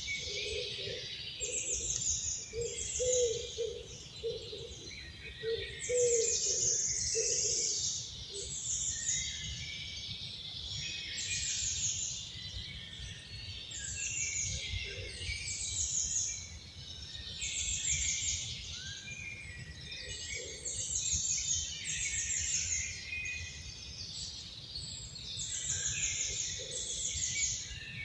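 Several wild songbirds singing at once, with short high trilled phrases repeated every second or so over a steady low background rumble. A lower repeated call sounds in series through the first several seconds, then only now and again.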